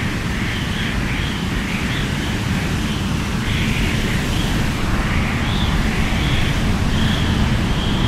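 Strong wind blowing steadily, a deep rumble under a high, wavering whistle that rises and falls in pitch.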